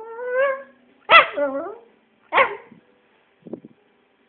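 Jack Russell terrier vocalising to beg for play: a rising whine, then two sharp yelping barks about a second apart, with a faint short grumble near the end.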